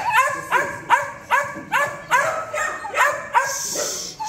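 Young puppy barking in a quick run of short, high-pitched yaps, about two to three a second.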